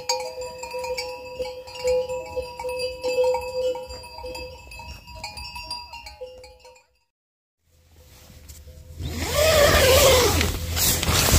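Livestock bells on grazing horses tinkling and ringing with repeated strikes for about seven seconds. After a brief dead gap, a louder steady rushing noise comes in, with sheep bleating.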